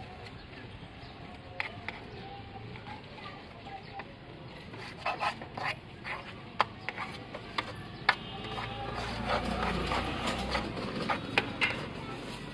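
Metal spoon scraping and clinking against a steel bowl as a mashed panipuri filling is stirred and scooped, in irregular sharp taps that come thicker in the second half. A low rumble sounds underneath around the middle.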